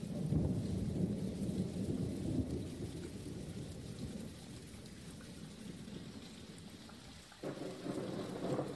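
Recorded thunderstorm: a low rumble of thunder over steady rain that gradually dies down, with music coming back in about seven and a half seconds in.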